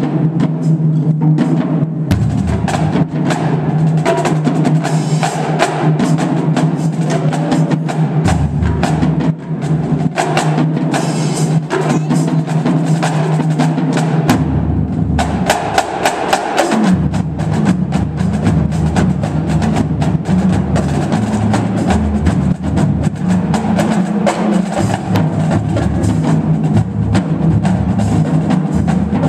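Marching drumline of snare drums, tenor drums and marching bass drums playing together, with dense, rapid stick strokes; the low bass-drum tones change pitch several times as the parts move between drums.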